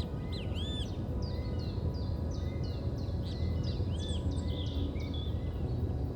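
Several songbirds chirping and singing in woodland, quick short notes and arched whistles overlapping throughout, over a steady low hum.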